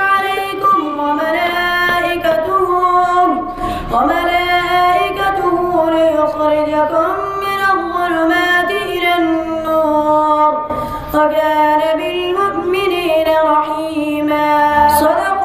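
A boy reciting the Quran in the melodic, drawn-out tilawat style: a single voice holding long ornamented notes, pausing briefly twice for breath.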